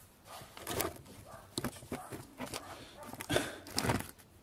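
Scattered handling noises: light knocks, rustles and a few sharp clicks as a plastic wiring plug and its wires are handled and put down on a work surface.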